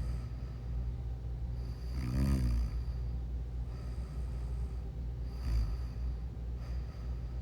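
A sleeping person snoring: two snores about three seconds apart, the first with a clear pitched tone, over a steady low hum.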